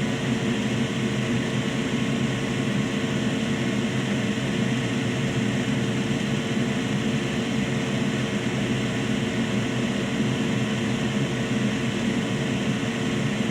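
Steady whir of a fan or blower, an even hum and hiss with a few faint steady tones, unchanging throughout.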